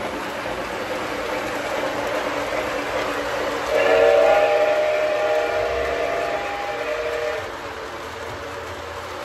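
Lionel model train running around the track, its wheels rumbling steadily on the rails. About four seconds in, the locomotive's onboard sound system blows a loud chord-like horn that holds for about three and a half seconds, then stops.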